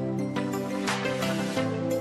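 Background music: sustained chord tones with a light beat roughly every 0.7 seconds.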